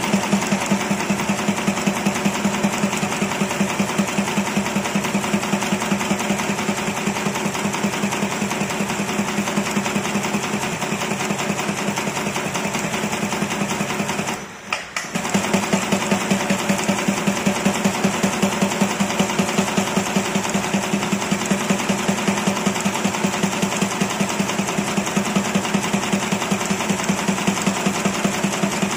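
Automatic brush tufting machine running at speed: a fast, even, rhythmic mechanical clatter as its tufting head drives bristle tufts into brush blocks. It drops out briefly about halfway through, then resumes.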